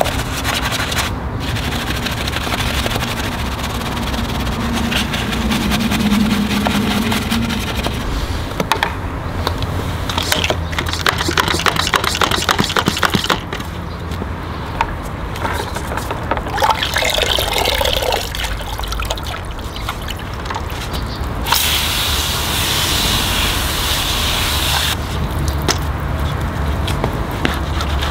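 Car-wash water sounds: water spraying and running over the bodywork, with rubbing and scraping of washing tools, in several short segments that change abruptly about halfway through and again twice near the end. A loud, even hiss of spray takes up about three seconds in the last third.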